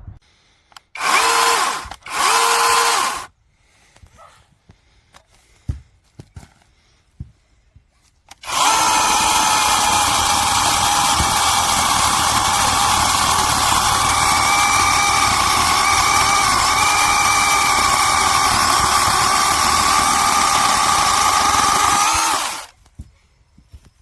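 VIWKO 6-inch battery mini chainsaw with a brushless motor: two short bursts of the motor, then it runs at a steady high whine for about fourteen seconds while cutting branches, and stops near the end.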